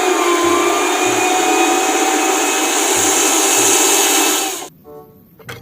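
A small electric motor running with a steady rush of noise and a faint whine, like a hair dryer or blower, then switched off abruptly near the end.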